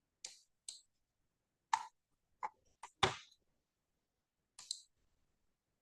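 About eight scattered clicks of a computer keyboard and mouse at an irregular pace, the two loudest about two and three seconds in.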